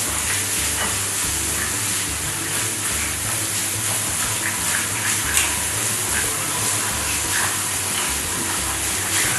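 Food sizzling as it fries in a pan, stirred with a spatula, with a steady hiss and small scraping ticks.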